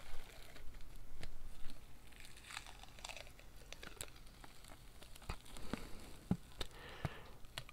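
Peel-off face mask being pulled away from the skin: faint crackling with scattered small clicks.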